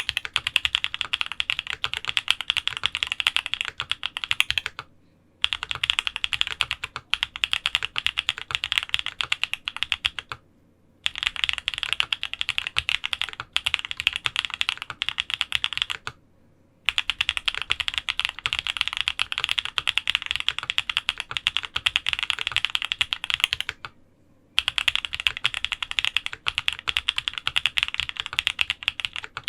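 Fast continuous typing on a Mode65 custom mechanical keyboard with lubed TTC Holy Panda tactile switches, a POM plate and GMK keycaps: dense key clacks with brief pauses four times.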